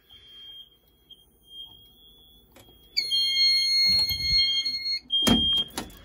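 Smoke alarms still sounding after the fire alarm panel has been silenced. They give faint, broken high-pitched beeps, then about halfway through a loud, shrill alarm tone for about two seconds. A few handling knocks come near the end.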